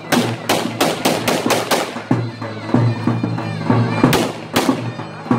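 Wedding dance music on a shrill double-reed wind instrument, a zurna, playing a held, reedy melody. A quick run of sharp bangs sounds over it in the first two seconds, and two more come about half a second apart some four seconds in.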